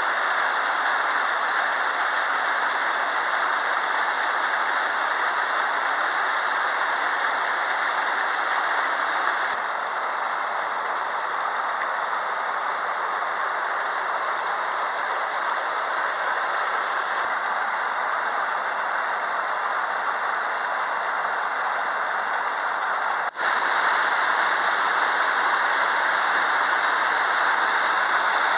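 Waterfall on the Río Queguay: cascading water making a steady, loud rush. The sound shifts abruptly about ten seconds in and again about twenty-three seconds in.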